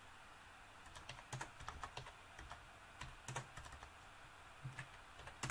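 Computer keyboard typing in short bursts of keystrokes with pauses between, starting about a second in.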